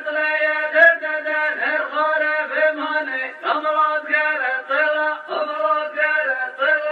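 A man's voice chanting a song in Arabic, held on a near-steady pitch with melodic turns, laid over the pictures as a soundtrack.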